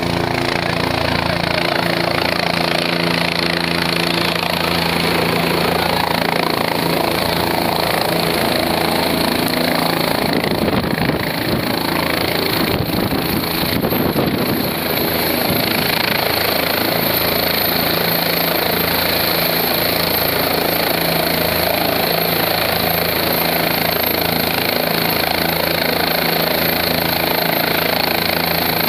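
Helicopter running on the ground with its main rotor turning, a steady engine and rotor noise with a high whine held throughout.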